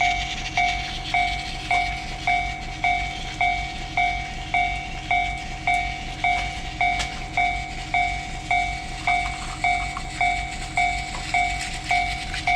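Japanese railway level-crossing warning bell ringing its steady two-pitch clang, a little under twice a second, over the running noise of a train.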